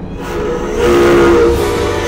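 Old factory steam whistle blowing: a rush of steam, then a loud chord of several steady whistle tones from about half a second in, held.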